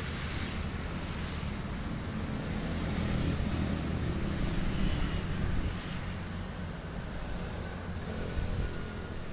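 Steady low rumble of road traffic, a little louder around the middle.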